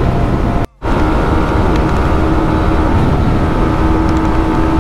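Yamaha R15 M's 155 cc single-cylinder engine running steadily at high speed, under heavy wind rush over the microphone. The engine note holds level rather than climbing, as the bike sits at a speed the rider says it is stuck at. The sound drops out briefly just under a second in.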